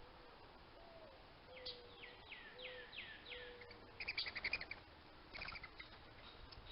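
Wild birds calling: a series of low hooting notes, overlapped by five quick downslurred whistles. About four seconds in comes a burst of rapid high chattering, then a shorter one.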